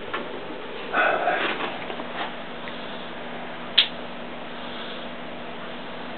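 Mastiff-type dog giving a short snort about a second in, then a single sharp click a few seconds later, over a faint steady hum.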